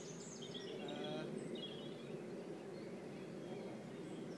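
Small birds chirping and trilling over a steady low rushing background, with most of the birdsong in the first second and a half.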